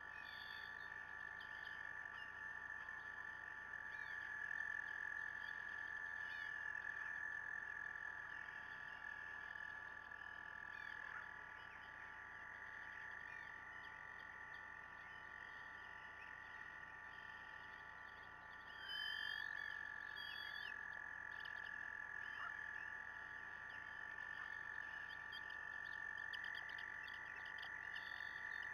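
Chorus of frogs: several long, steady trills at slightly different pitches overlapping, with a new trill joining partway through and again near the end. A bird chirps briefly a few times.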